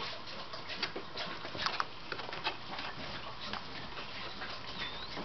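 Scattered light clicks and taps of plastic Lego pieces and minifigures being handled, over a steady background hiss.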